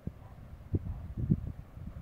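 Wind buffeting the microphone in irregular low rumbling gusts, strongest a little past the middle.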